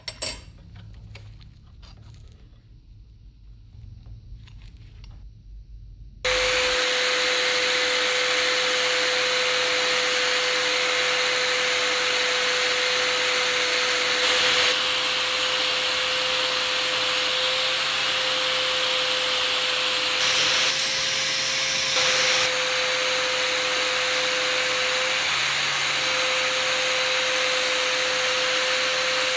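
A few light clicks and taps, then about six seconds in an electric power tool switches on abruptly and runs steadily, a constant whine over a hiss.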